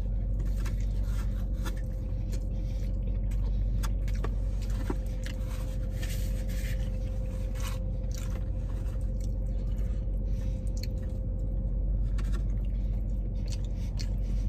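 Chewing with scattered clicks and scrapes as a cardboard fast-food box is handled, over a steady low hum with a faint steady tone from the car's cabin.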